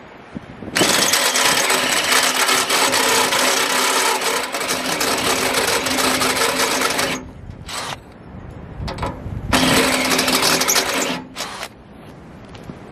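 Cordless drill with a step bit cutting through the steel of a tractor loader bucket: one steady run of about six seconds, a brief burst, then a second shorter run of under two seconds.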